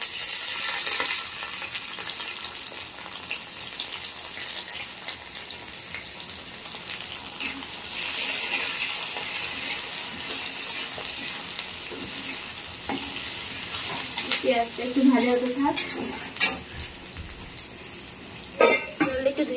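Sliced onions sizzling in hot oil in an iron kadai, the sizzle easing a little as they cook, with a metal spatula scraping and clicking against the pan as they are stirred.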